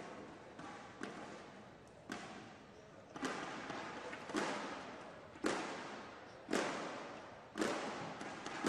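Spectators beating out a slow rhythm in unison, about one beat a second and echoing in the hall, getting louder partway through.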